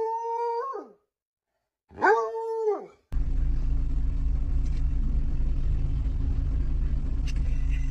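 A dog howling twice, each howl a held note about a second long that drops in pitch at its end. After about three seconds, a steady low rumble inside a car takes over.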